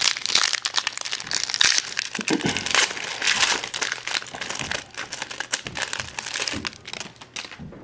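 A hockey trading-card pack's wrapper crinkling and crackling as it is handled and opened, with a dense run of crackles that thins out near the end.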